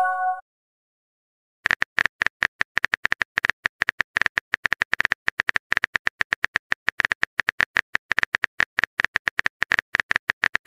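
Phone-keyboard typing sound effect: a fast, uneven run of short clicks that starts about one and a half seconds in and keeps going, as a message is typed out. At the very start, the tail of a short message-pop chime.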